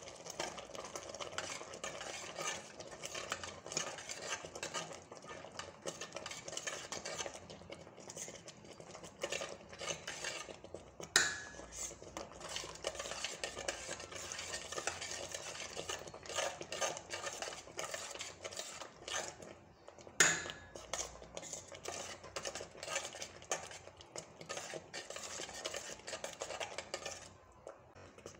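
A ladle stirring thick, simmering tomato chutney in a steel pot, scraping and clinking against the pot's sides, with two sharp ringing knocks on the metal, about a third and two-thirds of the way through. The chutney is being stirred on low heat after the chilli powder goes in, to keep it from catching on the bottom.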